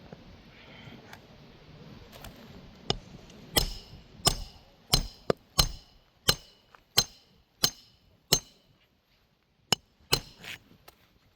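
Hammer driving a roofing nail through a replacement asphalt shingle: about a dozen sharp blows, less than a second apart, with a short pause before the last few.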